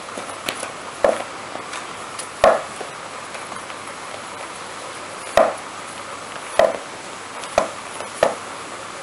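A kitten playing with a soft ball on and around a cardboard scratching pad on a wooden floor: irregular sharp knocks and thumps, about six louder ones with smaller taps between, over a steady background hiss.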